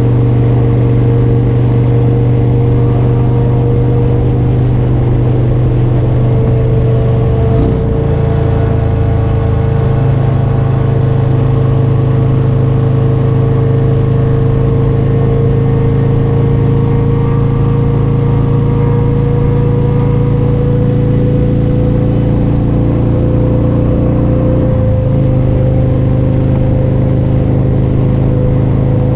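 Motorcycle engine running at a steady cruise, recorded from the bike itself, with two brief breaks in its note, about 8 seconds in and again near 25 seconds, and a pitch that creeps slowly upward in the later part.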